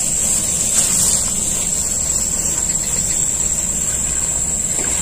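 Outdoor field ambience: a steady low wind rumble on the microphone under a constant high-pitched hiss, with faint footsteps swishing through tall grass.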